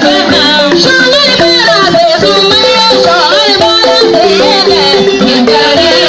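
Balafon, the West African wooden-keyed xylophone, playing quick repeating melodic phrases of short struck notes, with a voice singing over it.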